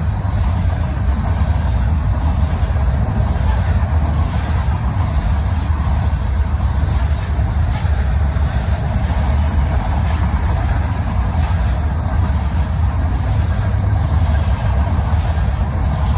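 A freight train's covered hoppers and tank cars rolling past on the rails: a steady, heavy rumble, strongest in the deep bass, that does not let up.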